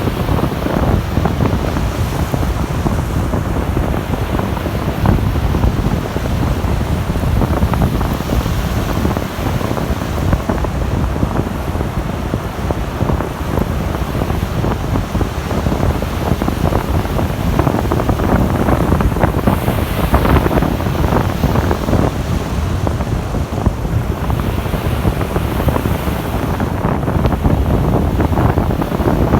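Wind buffeting the microphone with a heavy low rumble, over Baltic Sea surf washing onto the beach, a steady loud rush that swells and eases without pause.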